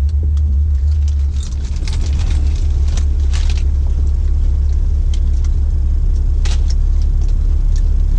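Steady low rumble of a car cabin, with the crinkle of plastic chip bags being handled in short bursts a couple of seconds in and again later.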